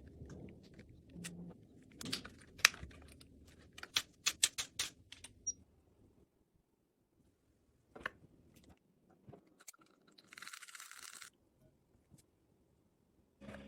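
Small objects being handled close up: a series of sharp clicks and taps, then a brief hiss or scrape about ten seconds in.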